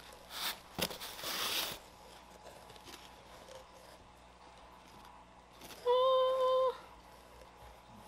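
Cloth snake bag rustling as it is untied and handled over a cardboard shipping box. About six seconds in comes one steady high-pitched call, a bit under a second long.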